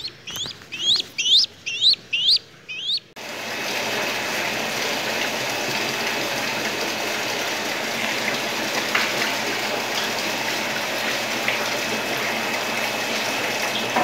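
A Colombian chachalaca chick (guacharaca) cheeping shrilly, a quick series of rising peeps about three a second. About three seconds in it gives way suddenly to a steady rush of water.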